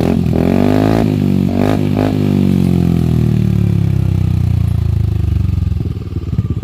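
Motorcycle exhaust through a new stainless Kinoche aftermarket pipe: a few quick throttle blips, then the revs sinking slowly back down to a pulsing idle near the end.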